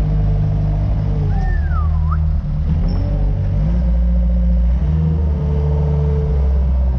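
Locust skid-steer loader's engine running loud inside its cab while the bucket works a load of manure, the engine pitch dropping and rising a couple of times. A short squeal glides up and back down about a second and a half in.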